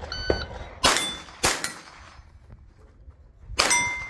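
.22 rimfire rifle shots, each followed by the short ring of a steel plate being hit. Three shots in the first second and a half, a pause of about two seconds, then another shot with a longer ring.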